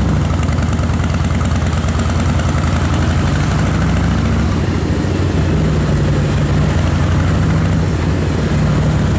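Harley-Davidson V-twin motorcycle engine running under way, heard from the pillion seat, its low note shifting a little with the throttle, with wind rushing over the microphone.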